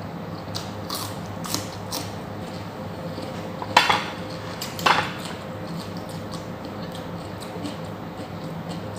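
Cutlery clicking and clinking against a plate during a meal. Several light clicks come first, then two louder clinks about four and five seconds in, over a steady low hum.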